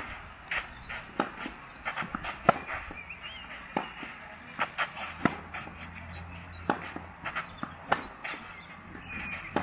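Tennis rally on a clay court: sharp pops of racket strings hitting the ball every second or so, with fainter ball bounces and shoes scuffing on the clay between shots.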